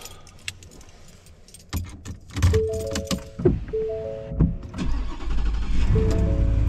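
Pickup truck's warning chime, a short three-note ding repeated every second or two, over keys clicking and clattering. About five seconds in the engine starts and settles into a steady low idle.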